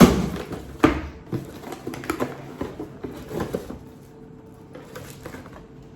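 Cardboard boxes being handled and opened by hand: a sharp knock at the start and another about a second in, then smaller taps and rustling of packaging that die down after about four seconds.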